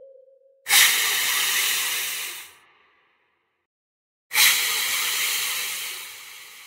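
Two long hisses, each starting suddenly and then fading. The second comes about three and a half seconds after the first and trails off more slowly.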